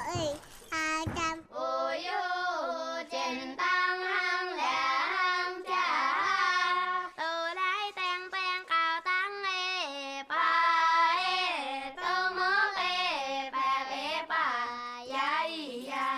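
Children's voices singing a melody, with held notes and pitch glides between phrases.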